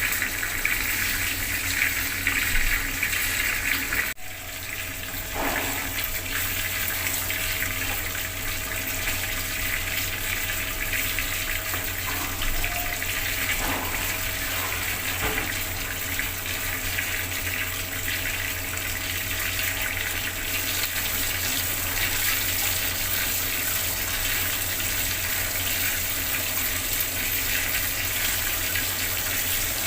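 Water running steadily from a bathroom tap and splashing, with a brief drop in the flow sound about four seconds in.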